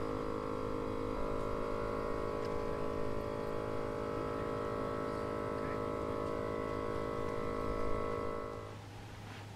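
A steady machine hum made of several held tones, shifting slightly about a second in and stopping abruptly near the end.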